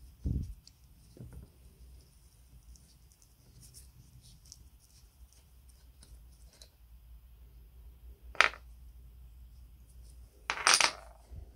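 Metal-on-metal handling of the cutting head of old electric sheet metal shears being taken apart with an Allen key: a dull knock near the start, one sharp metallic click later on, and a short clinking clatter near the end as a small steel part or the key is set down.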